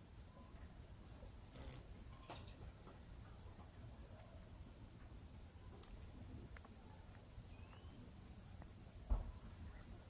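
Faint, steady high-pitched insect trilling, with a fainter note above it pulsing about twice a second, over a low rumble. A single thump comes about a second before the end.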